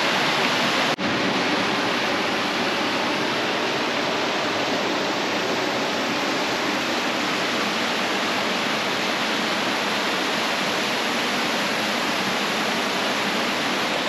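A waterfall rushing steadily, broken by a momentary drop about a second in.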